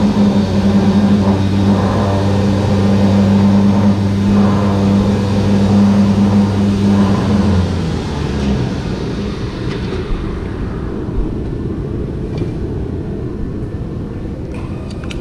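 A motor or engine running steadily with a low hum, which cuts out about eight seconds in; a steady noisy background carries on after it.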